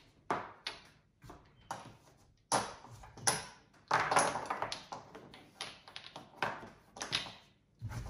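Backgammon checkers being set down, stacked and slid on the board: a string of sharp clicks and clacks, with a denser stretch of rattling and sliding about four seconds in.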